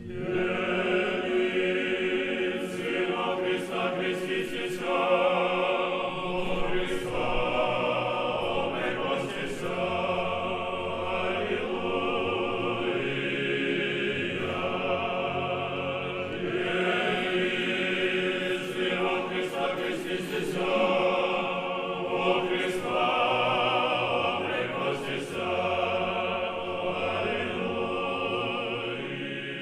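Church choir singing a slow liturgical chant, several voices holding sustained chords that shift every few seconds.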